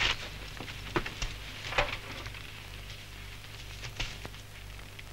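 A few short rustles and scuffs, the loudest near the start and others about one, two and four seconds in, as a heavy cloth jacket is handled and pulled on. Under them runs the steady low hum and hiss of an old film soundtrack.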